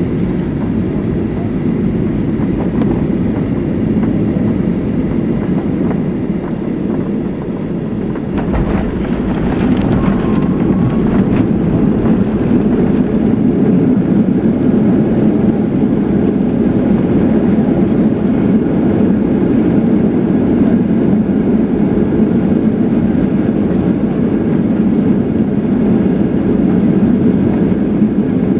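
Airliner cabin noise: a steady rumble of the jet engines and airflow. About eight seconds in, a jolt and rattle as the wheels touch down, then a louder rumble as the plane rolls along the runway.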